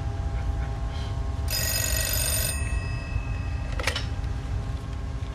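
Telephone bell ringing once for about a second, followed a little later by a sharp click, over a steady low hum.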